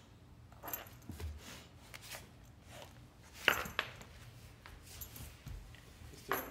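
A Rottweiler pawing at a spider on a hardwood floor: irregular clicks and taps of its claws on the boards, with its metal chain collar clinking. A sharp tap about halfway through is the loudest.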